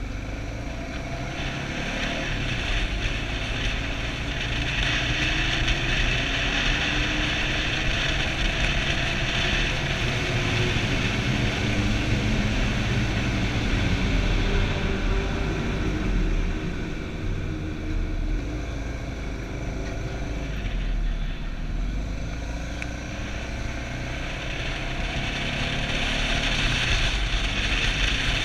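Suzuki DR650's single-cylinder four-stroke engine running under way, heard from the bike itself. Its pitch rises and falls several times as the rider opens and closes the throttle and shifts.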